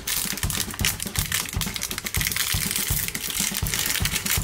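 Small clear plastic bag crinkling and crackling in the hands as it is worked open, a dense run of fine crackles, over a steady low beat.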